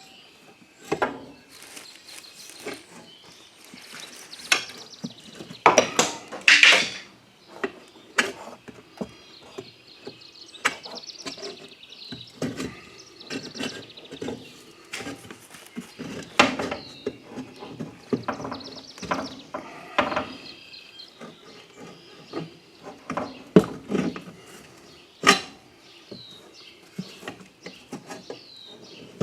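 Steel pry bars levering a small lawnmower tire's bead over its rim: repeated metal clinks and knocks, with scraping and short squeaks from the rubber as it is worked on.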